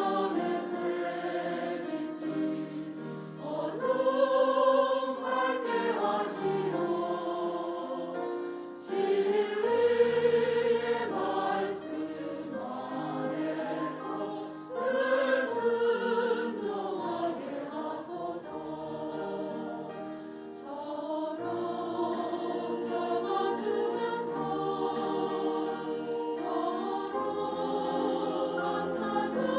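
Church choir singing a hymn anthem in several voice parts, the sustained phrases swelling louder and falling back.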